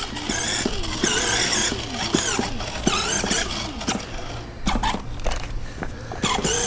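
Children's battery-powered ride-on quad whirring as it drives over grass, its electric motor and gearbox running steadily, with many short squeals that slide up and down in pitch.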